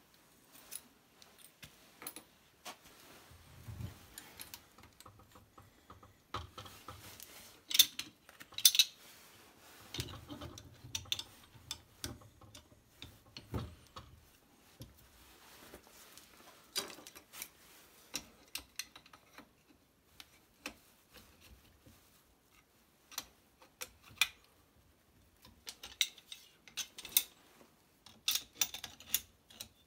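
Brass plumbing fittings being worked with hand tools: metal clinking as fittings are threaded together, then water-pump pliers gripping and tightening a brass valve on a water pipe. Irregular sharp clicks and clinks, some in quick clusters.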